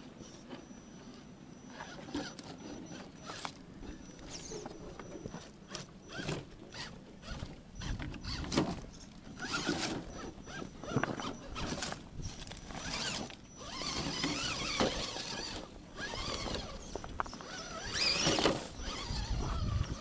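Radio-controlled scale rock crawler working over rocks: a faint high motor whine under its drivetrain grinding, with tyres and chassis scraping and knocking on stone. The knocks and scrapes come thicker and louder in the second half.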